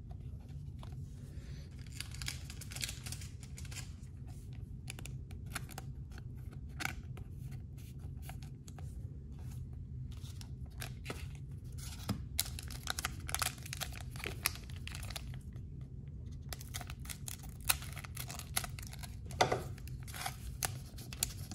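Foil wrapper of a football card pack crinkling and being torn open, with cards handled: irregular crisp crackles, thicker in the last few seconds, over a steady low hum.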